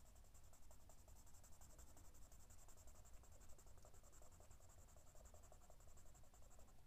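Faint scratching of a pencil shading on paper: many short, quick strokes laying down tone.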